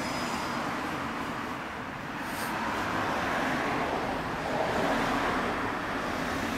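Road traffic noise with a vehicle going past, growing louder a few seconds in and easing off near the end.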